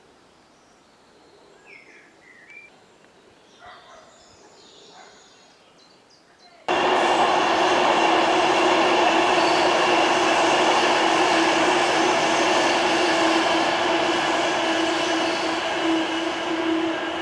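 Faint birdsong, then about seven seconds in the loud, steady rush of a train passing close by starts abruptly, with a steady hum running through it.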